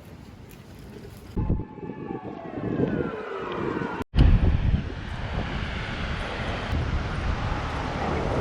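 A passing vehicle: its whine falls steadily in pitch over a couple of seconds. After a sudden break about four seconds in, a steady rumble of traffic-like noise runs on.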